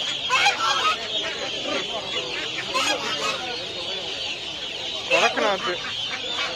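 Caged poultry calling and clucking over a constant, dense high chatter of many small birds, with people's voices in the background; one louder call stands out about five seconds in.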